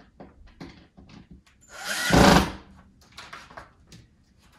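Power drill driving a hinge screw into a wooden cabinet door in one short run about two seconds in. Small clicks and knocks of handling come before and after it.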